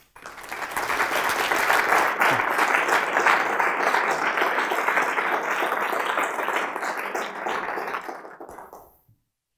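Audience applauding: the clapping builds quickly, holds steady for about eight seconds, then dies away near the end.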